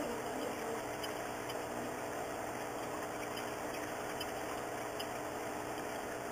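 Steady background hum and hiss that does not change, with a few faint ticks.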